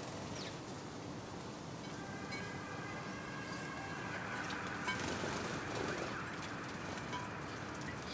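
House sparrows bathing in shallow dishes of water, fluttering their wings and splashing. A faint siren wails from about two to six seconds in.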